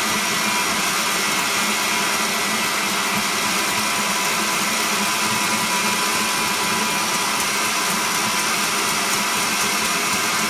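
Electric mixer running steadily, beating a tiramisu cream mixture in a glass bowl.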